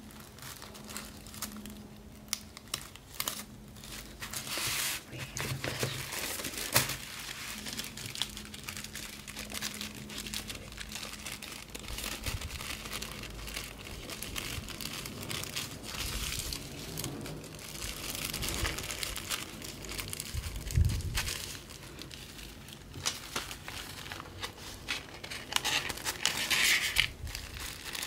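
Tissue paper rustling and crinkling as gloved hands fold and crease it around a package, with a low thump about three-quarters of the way through.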